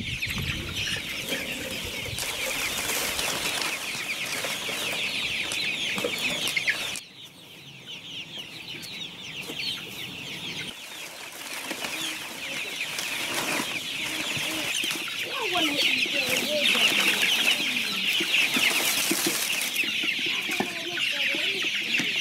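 A large brood of chicks peeping constantly, many high chirps overlapping into one continuous chorus. It drops abruptly about seven seconds in and then builds back up.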